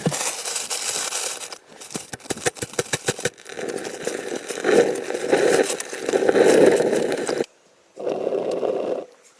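Scraping and crackling of wood being worked by hand, with a run of sharp clicks followed by longer rasping strokes; it cuts out abruptly for about half a second near the end, then resumes.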